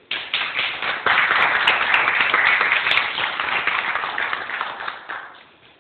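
Audience applauding: many hands clapping together, starting suddenly, growing louder about a second in, then dying away near the end.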